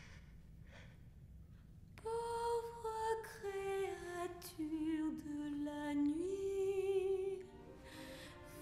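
A woman's solo singing voice, coming in about two seconds in with slow held notes and vibrato that step downward in pitch, then breaking off shortly before the end.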